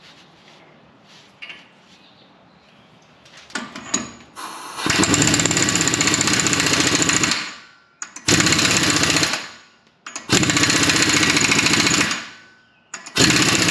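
Impact wrench run in four bursts, the longest about two and a half seconds, each winding down as the trigger is released, spinning a nut down onto the new front hub. A few light clicks of parts being handled come before it.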